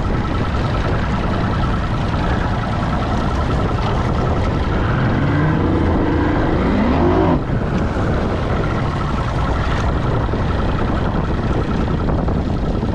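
Wind buffeting the microphone over a bass boat's outboard motor running at idle. About five seconds in, a rising whine builds and then cuts off suddenly.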